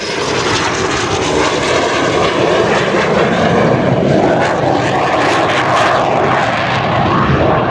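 Aircraft engine running loud and steady as a display aircraft makes a slow low pass.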